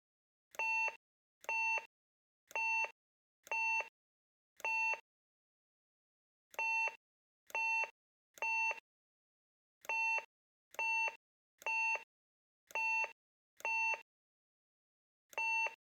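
Factorial door intercom panel beeping: fourteen short, identical single-pitch beeps, as its keypad is pressed, in groups of five, three and five, then one more near the end, with pauses between the groups.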